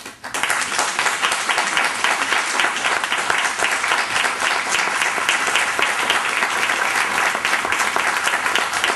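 Audience applauding: many hands clapping together, starting abruptly and holding at a steady level.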